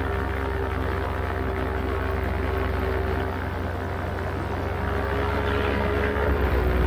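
Paramotor engine and propeller running steadily in flight, an even droning hum, with wind rumble on the microphone that grows louder near the end.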